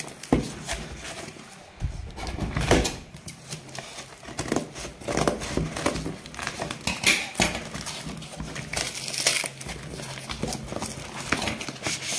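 Hands tearing and crumpling a cardboard parcel wrapped in packing tape: irregular rustles, rips and crackles.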